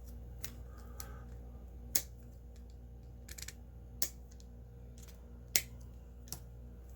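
Wire cutters snipping through electrical wires one at a time: three sharp snips about two, four and five and a half seconds in, with softer clicks of the tool in between.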